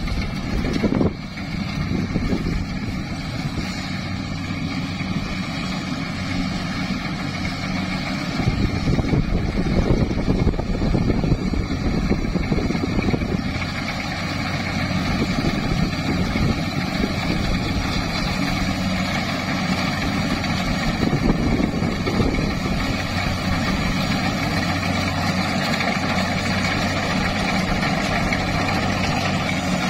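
Rice combine harvester's engine and machinery running steadily as it cuts flattened, lodged rice, a constant low hum throughout.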